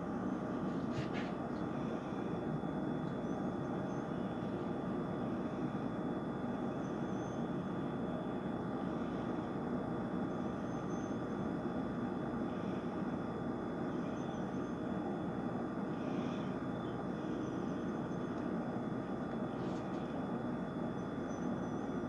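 A steady, even rumble of background noise with no distinct events.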